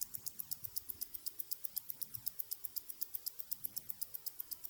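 Mechanical wristwatch ticking close up: a rapid, even run of sharp, high ticks, about seven a second.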